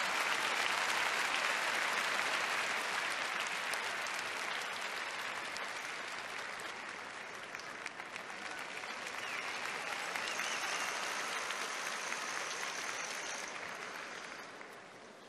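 Large arena crowd applauding, loudest at first, easing off, swelling again about ten seconds in, then dying away near the end.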